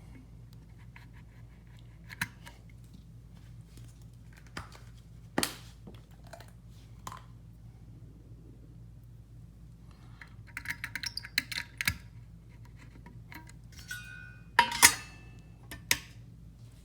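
Scattered clicks, scrapes and small rattles of a preamp tube being handled and changed in a small valve amp head, with the loudest clacks near the end. A steady low amp hum runs underneath.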